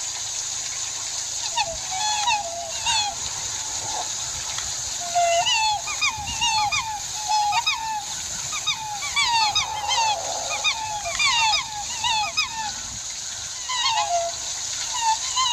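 Waterfowl calling: a quick run of short honks that bend up and down in pitch, starting about two seconds in, crowding together mid-way and thinning out near the end, over a steady high hiss.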